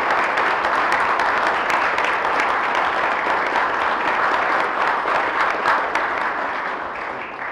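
Banquet audience applauding steadily, the clapping fading away near the end.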